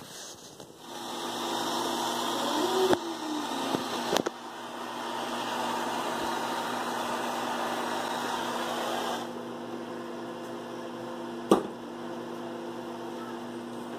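Handheld propane torch flame hissing steadily as it scorches the end grain of pine 2x4s, with a couple of light knocks. The flame cuts off about nine seconds in, leaving a steady low hum, and a sharp click sounds near the end.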